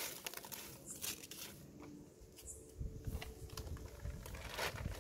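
Faint, scattered clicks and light rattles of lump charcoal pieces knocking together as a hand spreads them out.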